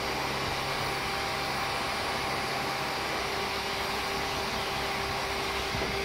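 Numatic George wet-and-dry vacuum cleaner running steadily as its floor tool is pushed over artificial grass. A higher steady tone joins just before the end.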